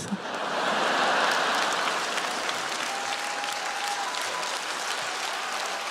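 Studio audience applauding, loudest about a second in and then settling to a steady clapping.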